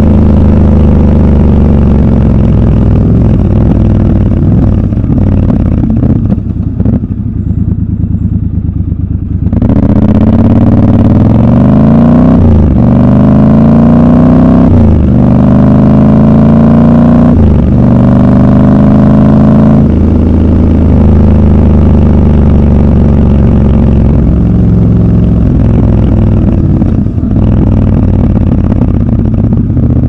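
Triumph Scrambler 1200 XC's 1200 cc parallel-twin engine running under a rider at road speed. It eases off for a few seconds, then accelerates through the gears, its pitch climbing and dropping back at each of three upshifts, and settles into a steady cruise.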